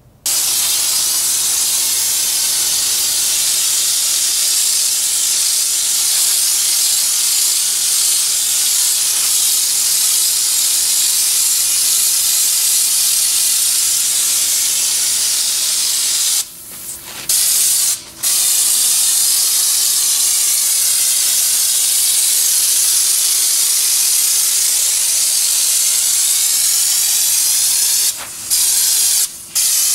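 Raptor bed liner spray gun fed by an air hose, spraying in a loud steady hiss. The hiss stops when the trigger is let go: for most of a second a little past halfway, very briefly just after, and twice briefly near the end.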